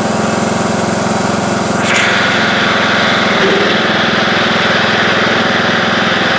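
Craftsman YT3000 riding lawn tractor's engine running steadily under way. About two seconds in, a hiss joins over the engine note and stays.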